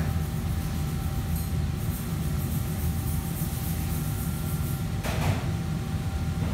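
Steady low rumble of kitchen fans and machinery running, with a faint thin whine over it. A brief hiss cuts in about five seconds in.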